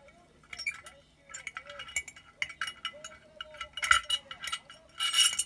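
Plastic model-kit wing parts and a thin rod clinking and tapping against the inside of a glass bottle as the parts are worked into place: a run of small irregular clicks, with a louder scraping rattle about five seconds in.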